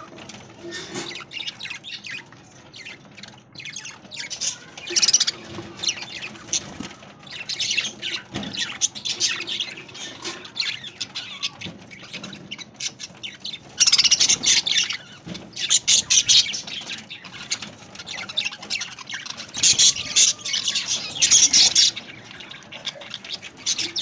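A flock of budgerigars chattering and chirping in quick, high-pitched bursts, loudest about midway and again near the end.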